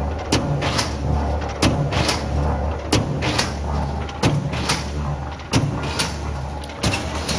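Heavy JQ25-63 expanded metal machine running: a steady low motor hum under sharp metallic strikes, roughly one every half second, as the toothed blade slits and stretches sheet metal into diamond mesh.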